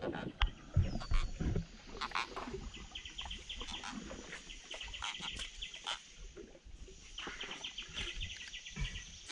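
Runs of rapid, even chirping trills from an animal, with a few sharp knocks in the first second or two.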